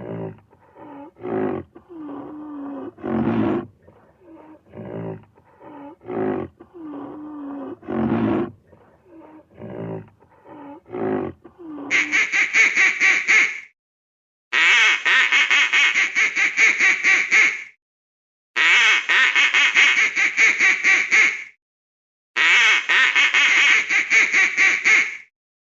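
Animal calls: short pitched calls repeated about once a second, then, from about halfway, four long calls made of fast rapid pulses, separated by short gaps.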